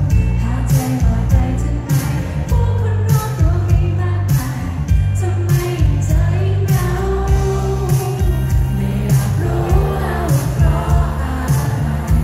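A Thai pop song played live by a band: a woman singing lead over electric guitar and drums, with a steady beat of drum and cymbal hits, heard loud from the audience.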